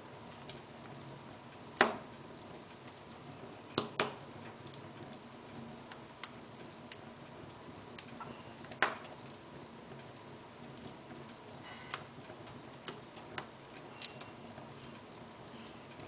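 Wood fire in an open fireplace crackling, with irregular sharp pops from the burning logs over a soft steady hiss. The loudest pop comes about two seconds in, with a close pair near four seconds and another near nine.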